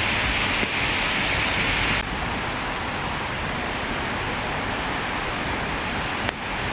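Steady rain falling, an even hiss, which becomes a little quieter and duller about two seconds in.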